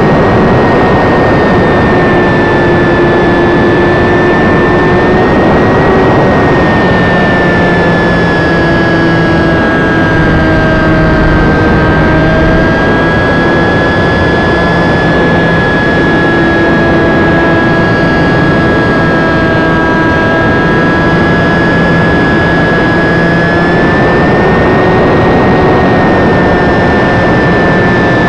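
Electric motor and propeller of a UMX Beast ultra-micro radio-control plane whining steadily in flight, heard from a camera on its tail, over a rushing wind noise. The pitch sags a little through the middle and climbs again near the end as the throttle changes.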